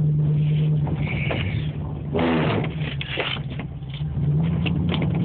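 Dodge Dakota pickup engine running with a steady hum that drops away about two seconds in and picks up again about four seconds in.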